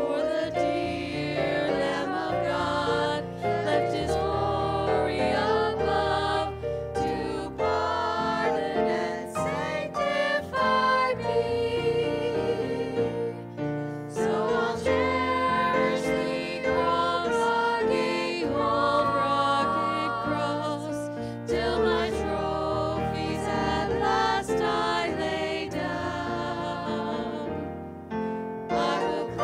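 Worship song sung by several singers together into microphones, with instrumental accompaniment underneath.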